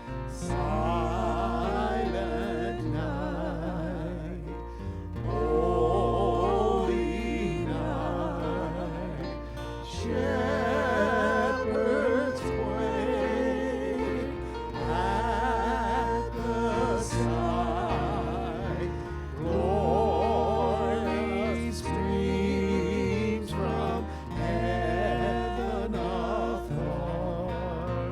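Church hymn singing: wavering voices held on long notes over sustained low accompaniment.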